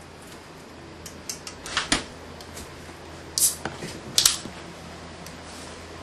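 Bottles, jars and containers being taken from a refrigerator's shelves and handled: a run of sharp clicks and clatters, the loudest around two seconds in and again around three and a half and four seconds in, over a low steady hum.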